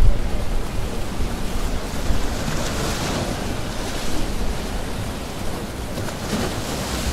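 Wind buffeting the camera's microphone: a steady rushing noise with gusty low rumbles.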